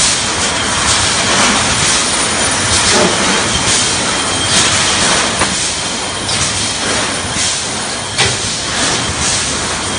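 Steel truss welding machine running: a loud, continuous mechanical hiss and rattle with scattered sharp clicks and knocks.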